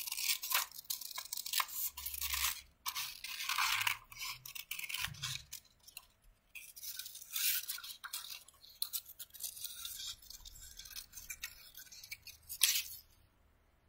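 Scissors snipping through coloured craft paper in a run of short, irregular cuts while a small circle is cut out.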